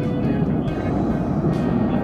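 Steady rumble of a fighter jet's engines as it flies past at a distance, with background music playing over it.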